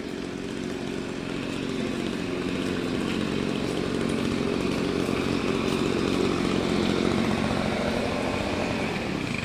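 Water spraying from an elephant fountain's trunk: a steady rushing hiss over a low buzz. It builds over the first couple of seconds and dies away at the end as the water stops.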